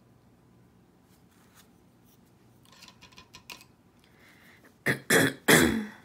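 A woman coughing three times in quick succession, loud, near the end. Before that, a few faint clicks and taps.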